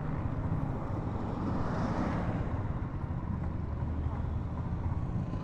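Motorcycle engine running steadily while riding along a road, with wind and road noise mixed in.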